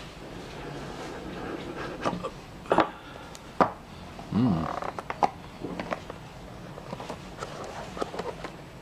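A small cardboard gift-style box being handled and its lid slid off, giving scattered light taps, clicks and rubbing of card against card and fingers. A brief pitched voice-like sound comes about halfway through.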